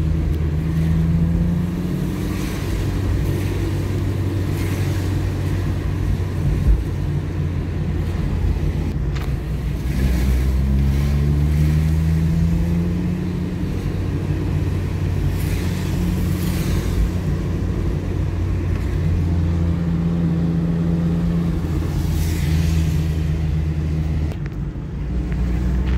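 Car engine and road noise heard from inside the moving car on a rain-wet street, a steady low hum whose pitch rises several times as the car speeds up.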